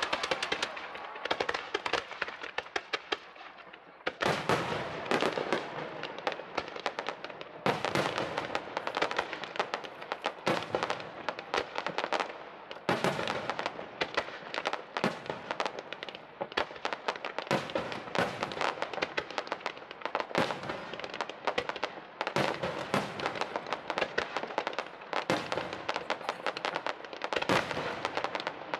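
Aerial fireworks fired in a rapid barrage: dense crackling of bursting stars with no letup, broken by louder bangs every one to three seconds.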